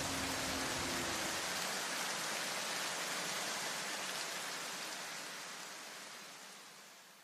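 Steady rain-like hiss, fading out over the last few seconds.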